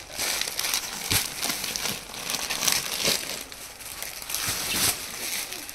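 Clear plastic packaging bags crinkling as packed suits are pulled out and handled, with irregular crackles and rustles.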